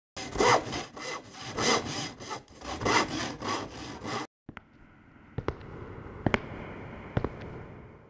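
Rhythmic rasping strokes, about two a second, that stop abruptly after about four seconds. A quieter steady hiss follows, with a few sharp clicks.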